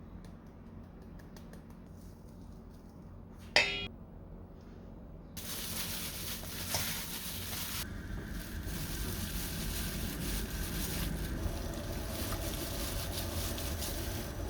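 Kitchen work: a single sharp metallic clink, then a few seconds later a steady watery rushing noise that runs on and grows fuller.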